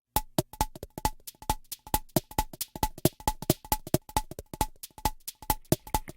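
Music: a sparse electronic drum beat of sharp, evenly spaced hits, about four a second, each with a short ringing knock.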